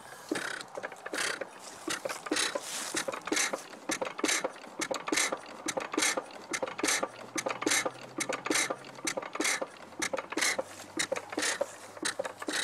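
A 1.5 hp Sattley hit-and-miss engine firing in a regular run of sharp exhaust pops, about two to three a second, stopping at the very end. It runs only in short bursts and will not stay running, which the owner puts down to a bad condenser.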